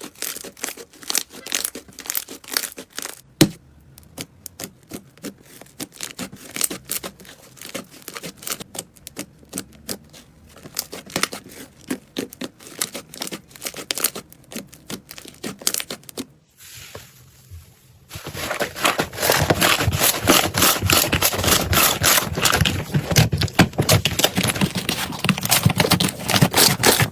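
Slime being squeezed and worked by hand, giving off dense, irregular crackling and popping clicks. After a short break about two-thirds of the way through, the crackling comes back louder and denser.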